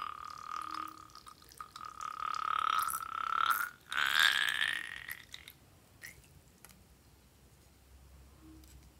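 A slime-filled balloon squeezed so its contents and air squirt out through a narrow straw nozzle: a high squeal that rises slowly in pitch, in three stretches over the first five seconds. After that only a few faint clicks as the balloon is handled.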